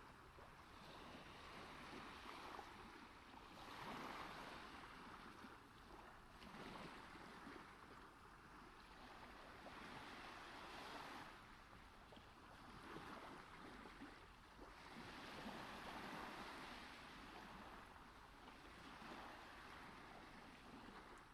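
Faint sea waves washing in, the surf swelling and fading every few seconds.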